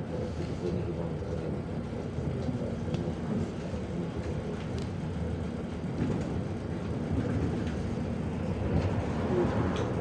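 Cabin noise inside a moving MAZ-105 articulated city bus: the steady low rumble of its engine and tyres on the road, growing a little louder near the end.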